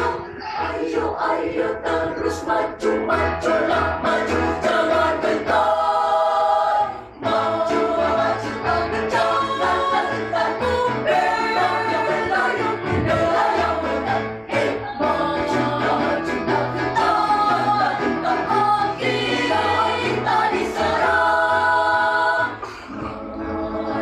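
School choir of boys and girls singing together in several voice parts, in a sustained, continuous choral passage.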